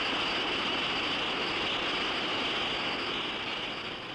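Steady roar and hiss of industrial heat-treating equipment for gun-barrel steel, easing slightly near the end.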